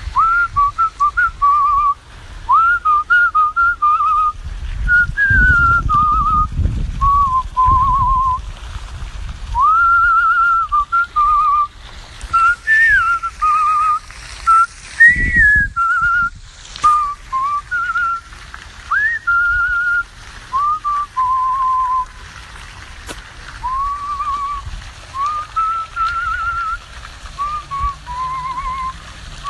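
A man whistling a tune, a string of short held and gliding notes with a wavering vibrato on the longer ones. A couple of low rumbles on the microphone come through partway in.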